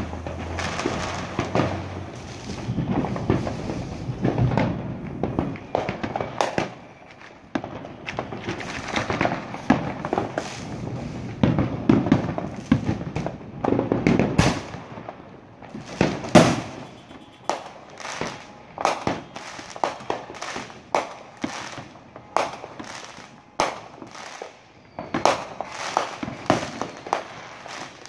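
Aerial fireworks shells bursting in a long run of sharp bangs and pops at irregular intervals, several a second at times, with the loudest bang about midway.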